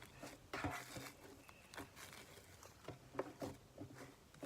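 Slime being kneaded and mixed by hand, giving soft, irregular squishes and sticky clicks.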